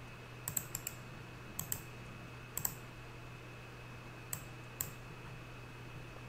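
Scattered clicks of a computer mouse and keyboard, some in pairs or threes, over a faint steady electrical hum.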